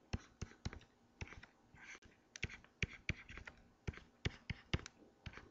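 Pen stylus tapping and scratching on a tablet computer's screen while handwriting: a string of irregular sharp taps with short, faint scratches between them.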